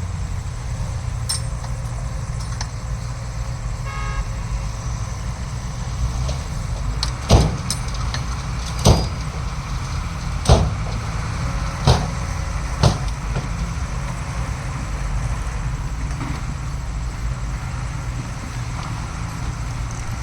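Heavy diesel earthmoving machinery running steadily with a low rumble. Five sharp, loud knocks come a second or so apart in the middle.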